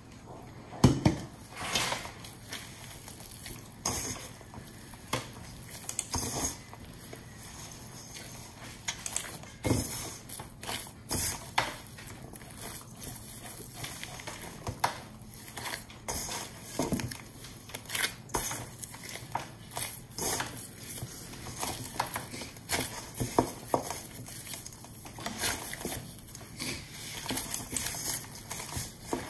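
Hand in a plastic glove kneading bun dough in a stainless steel bowl: irregular knocks of the dough and hand against the metal bowl.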